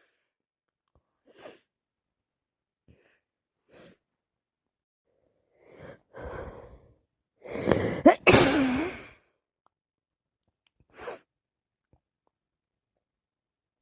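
A woman with a heavy cold sneezing once, loudly, about eight seconds in, after a drawn-in breath. Short, faint breaths come before it, and one more follows a few seconds later.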